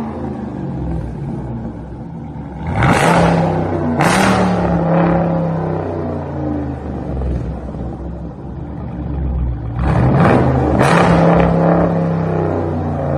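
Jeep Grand Cherokee SRT's 6.4-litre HEMI V8 idling and being free-revved while stationary: two quick throttle blips about three and four seconds in, then two more around ten and eleven seconds, each settling back to idle.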